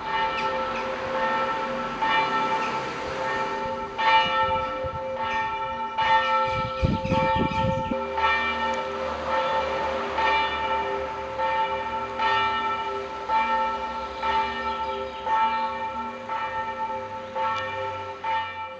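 Church bells ringing a peal, with a fresh strike about once a second and the tones ringing on between strikes.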